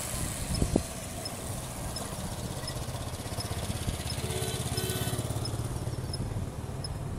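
Motorcycle engine running close by, a steady low rumble that grows a little louder in the middle. Two short beeps sound about four and five seconds in.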